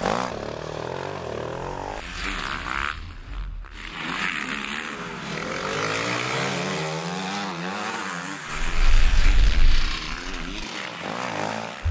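Several motocross bike engines revving up and down, their pitch rising and falling in waves, in abruptly spliced segments. A deep rumble is loudest around nine seconds in.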